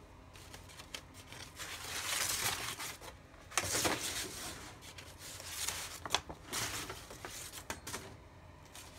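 Paper rustling and crinkling in irregular bursts, loudest about two and four seconds in, with shorter crackles later.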